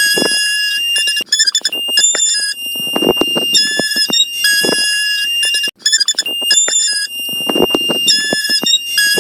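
A shrill, loud, alarm-like electronic sound: a steady high-pitched tone with beeping tones switching on and off over it and harsh lower bursts, the whole pattern repeating as a loop about every four and a half seconds.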